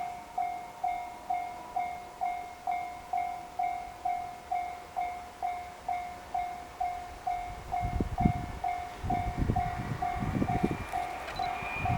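Level crossing warning bell ringing steadily, about two dings a second. From about seven and a half seconds in, the low rumble and wheel thumps of an approaching container freight train hauled by an EH500 electric locomotive build up beneath it.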